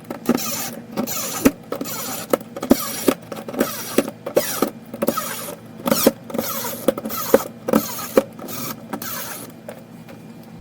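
Repeated sharp clicks, about two a second, with short scraping and rattling of parts as pieces of a kinetic wall sculpture are handled and fitted together during assembly.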